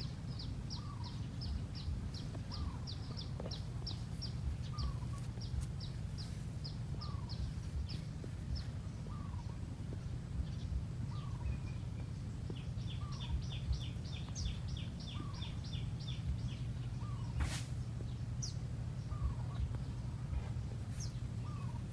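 Birds calling: a short falling note repeated about once a second, with runs of fast high-pitched ticking, over a steady low rumble. A single sharp click comes about two-thirds of the way in.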